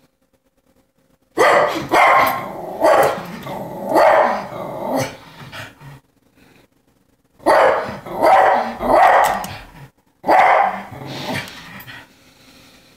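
Spaniel barking loudly at a window in three bouts of repeated barks, starting about a second and a half in, with short pauses between the bouts.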